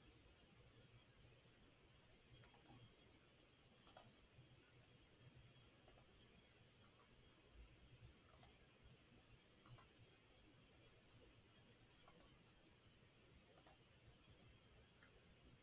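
Computer mouse button clicking: about seven sharp clicks spaced a second or two apart, each heard as a quick double tick, over faint room hiss.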